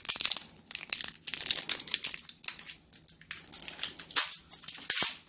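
Clear plastic wrapping crinkling and crackling in irregular bursts as it is pulled off a space heater's power plug and cord by hand.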